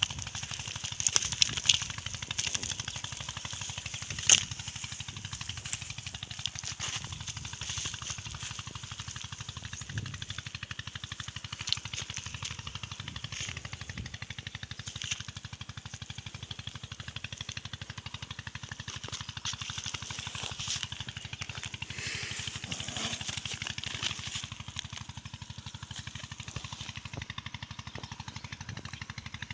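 A green nylon mesh bag being handled, spread out and emptied on gravel: rustling and scattered sharp clicks, the loudest a few in the first few seconds, over a steady low rumble.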